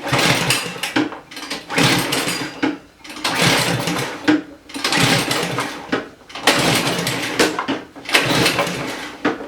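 Recoil starter of a small snowblower engine pulled about six times in a row, roughly once every one and a half seconds, with the engine cranking but not catching. The engine is choked and starved of fuel, since no gas is reaching the carburetor bowl.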